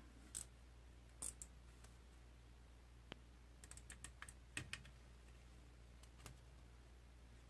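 A few scattered light clicks and small handling ticks of a plastic zip tie being fastened and pulled tight, with a cluster of clicks around the middle, over a faint steady low hum.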